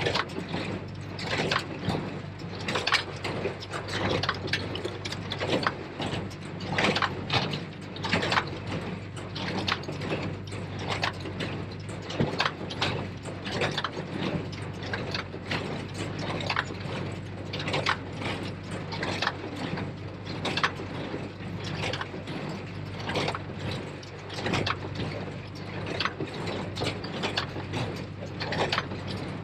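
New Holland 273 square baler at work behind a Case IH JX75 tractor: a steady tractor engine drone under the baler mechanism's repeated clanking and rattling, about one or two sharp knocks a second.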